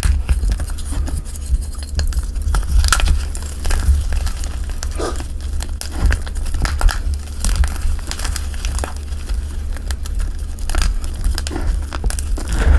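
Gym chalk and cornstarch being crushed and crumbled by hand: irregular crunchy crackles and crinkles, over a steady low rumble.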